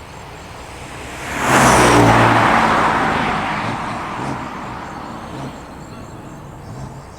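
BMW F82 M4, its twin-turbo straight-six fitted with catless downpipes and a tune, driving past: the engine and exhaust note swells quickly about a second in, drops in pitch as the car goes by, and fades away over the next few seconds.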